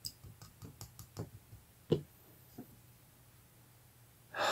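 Light clicks and ticks from the loose pocket clip of an Artisan Cutlery Ahab folding knife as it is fingered, with a louder click about two seconds in. A short breathy rush of noise comes near the end.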